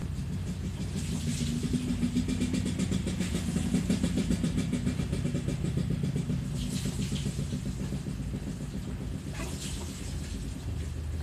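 An engine running with a low, rapidly pulsing rumble that grows louder a few seconds in, then eases off, with two short hissy noises in the second half.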